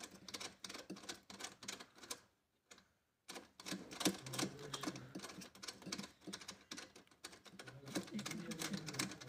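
Rapid, irregular light metallic clicks and taps as a screw and threaded rod are fitted and turned by hand in a metal chandelier frame, with a brief pause about two seconds in.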